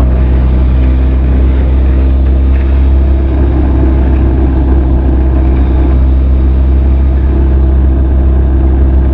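Benelli TRK 502's parallel-twin engine and exhaust running steadily while the motorcycle is ridden, at an even speed with no revving up or down.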